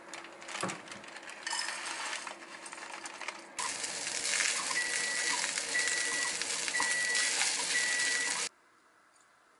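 Kitchenware clattering, then rice with thistle sizzling in a frying pan as wooden chopsticks stir it, with small clicks. A short high beep sounds four times, about once a second, and the sizzle cuts off suddenly near the end.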